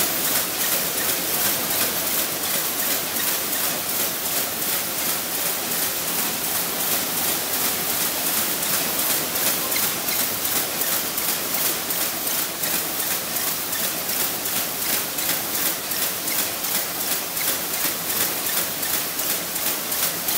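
Automatic mini-cone forming machine running at production speed: a steady mechanical clatter with a regular beat of sharp strokes, a few a second, as each cone is formed and moved on.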